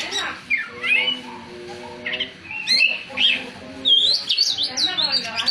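Oriental magpie-robin (kacer) singing: bursts of quick, sharp whistled notes sliding up and down in pitch, with a lull about a second in and dense runs in the second half.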